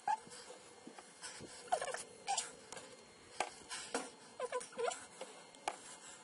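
MakerBot Replicator 2X stepper motors jogging the extruder carriage and build platform in short moves, sped up fourfold so each move comes out as a short squeaky chirp. There are about eight or nine chirps, each with a click, at irregular intervals.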